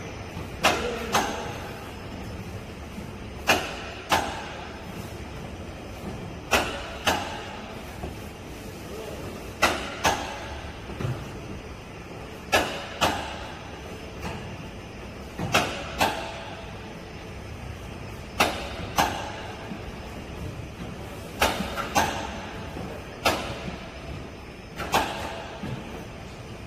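Chain-driven vertical box conveyor running in a cycle, giving pairs of sharp metallic clunks about half a second apart, roughly every three seconds, over a steady machinery hum.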